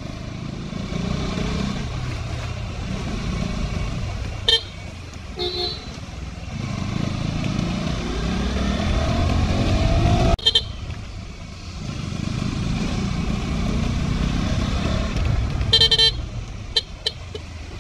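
KTM 200 Duke's single-cylinder engine running on its stock exhaust under wind rush, climbing in pitch as it accelerates and dropping off sharply about ten seconds in. A few short vehicle horn beeps cut in, around four and a half, five and a half, ten and a half and sixteen seconds in.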